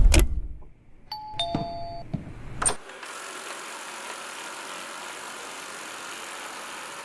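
Robot vacuum cleaner giving a two-note falling electronic beep, then a click, and its motor and brushes starting into a steady whirring hiss.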